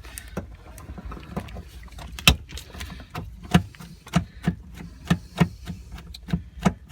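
An irregular run of sharp clicks and knocks from hand tools and parts being handled, the loudest a single hard knock about two seconds in.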